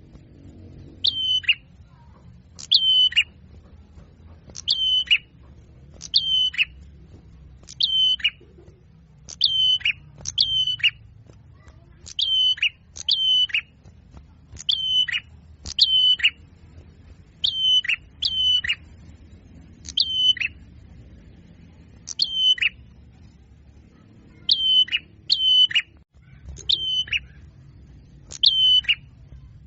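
A small songbird's short call, sweeping down in pitch, repeated over and over, singly or in quick pairs about every second or two, as on a lure recording for trapping small birds. A faint low hum sits underneath.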